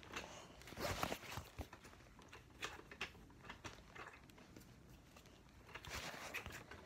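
Faint, scattered clicks and rustles of foam Nerf darts being handled and pushed into a Nerf blaster.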